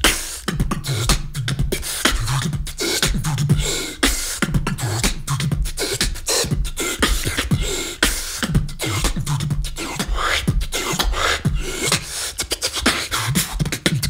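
Solo vocal beatboxing into a microphone: fast, dense percussive mouth sounds over a low hummed bass tone that comes and goes in rhythm.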